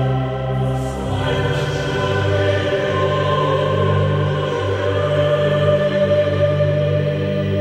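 Background music: slow, sustained choir-like chords, changing about a second in.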